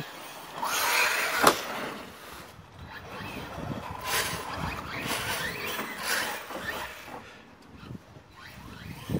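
Electric radio-controlled cars driving on an icy, snow-cleared track, their motors and tyres rising and falling in several bursts. A sharp knock about a second and a half in.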